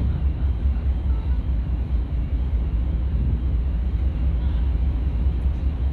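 Wind buffeting the microphone on a ferry's open deck while the ship is under way, a continuous low, gusting rumble.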